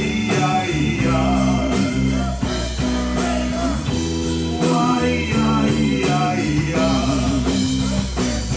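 Rock band playing live, with a bass line moving under a wavering melody.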